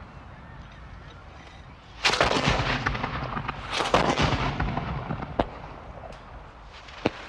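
Gunfire at a shooting range: a rapid run of shots about two seconds in, another close cluster near four seconds, then single sharp shots near five and a half and seven seconds, each with an echoing tail.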